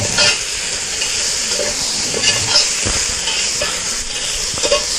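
Diced onion sizzling steadily in hot oil in a cast-iron camp oven over campfire coals, with a spoon stirring and scraping through it in small clicks.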